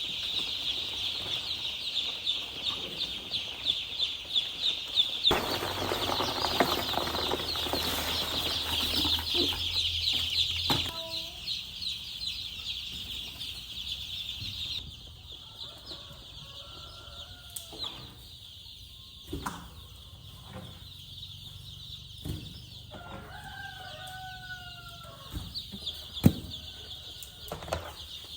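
A brood of baby chicks peeping nonstop in a high-pitched chorus. In the first half there is a stretch of rushing noise with a low hum, and later a few lower calls from grown chickens and several sharp knocks.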